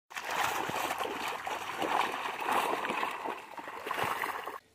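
Water rushing and splashing: a dense, steady wash with many small splashes in it, starting abruptly and cutting off just before the end.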